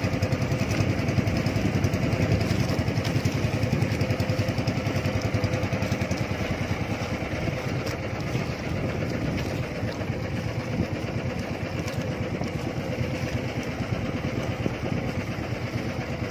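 Engine of a motorised fishing bangka running steadily as the boat moves, with a fast even chugging, a little quieter from about halfway through.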